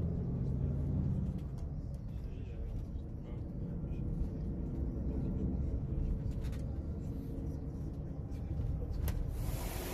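A low, steady rumble with a few faint clicks scattered through it.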